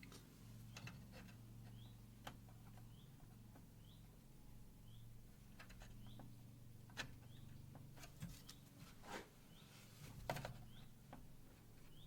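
Faint clicks and taps from hands working on computer parts inside a PC case, a few louder knocks in the second half, over a low steady hum. A faint short high chirp repeats about every 0.7 s.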